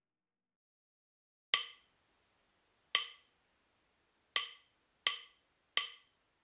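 Five sharp wood-block knocks from the soundtrack, each ringing briefly, the first three about a second and a half apart and the last two coming quicker.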